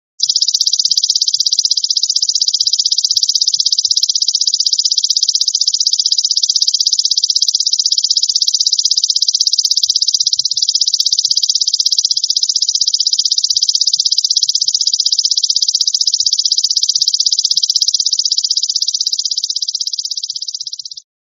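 Golden grasshopper (belalang emas) calling: a loud, high-pitched, continuous rapid trill that fades slightly near the end and then cuts off suddenly.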